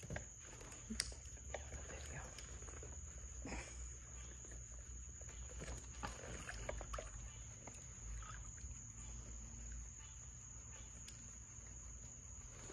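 Crickets chirping steadily in the background, with a faint low rumble and scattered small clicks and knocks.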